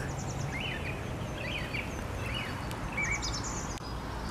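Songbirds singing in short, repeated chirping phrases, with quick high trills near the start and again about three seconds in. A steady low background hum runs underneath.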